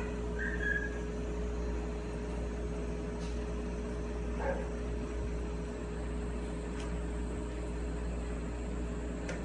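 Steady mechanical hum of a running household appliance, with a short high whine about half a second in.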